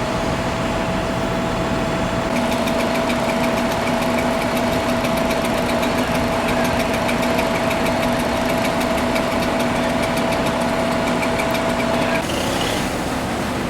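Fire truck engine idling steadily with a rapid, even ticking over it. The engine sound and the ticking cut off abruptly about twelve seconds in.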